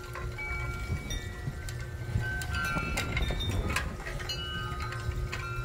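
Wind chimes ringing, several metal tones at different pitches starting one after another and overlapping, over a steady low rumble.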